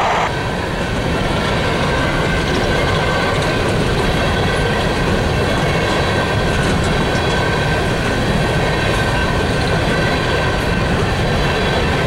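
Empty coal gondolas of a freight train rolling steadily past at slow speed: a continuous rumble of steel wheels on rail, with thin, steady squealing tones over it.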